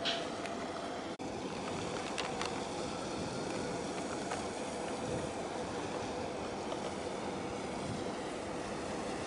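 Steady waterfront ambience: wind and water noise with a faint steady hum underneath, briefly dropping out about a second in.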